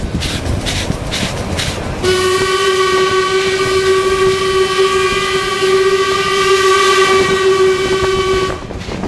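Steam locomotive B1A No. 251 running with a regular beat, then its steam whistle sounds one long steady blast of about six and a half seconds, starting about two seconds in and cutting off sharply.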